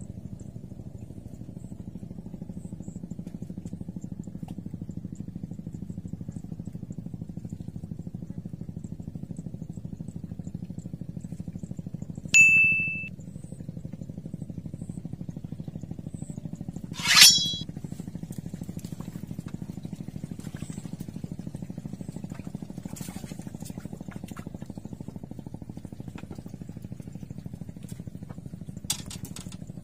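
A steady low engine drone. Two short, sharp ringing dings cut through it, the first about twelve seconds in and a louder one about five seconds later, and a small click comes near the end.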